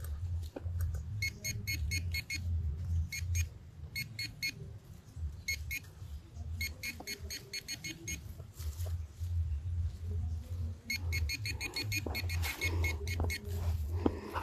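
Metal detector sounding bursts of rapid, short high beeps, repeated in groups as the coil sweeps over buried metal, over a pulsing low hum.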